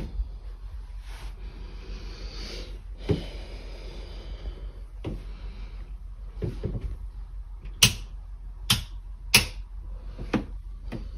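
Scattered light knocks and clicks, about eight of them, with a soft rustling in the first few seconds, typical of footsteps and handling noise from a phone carried through a small room; three sharper clicks come close together about eight to nine and a half seconds in.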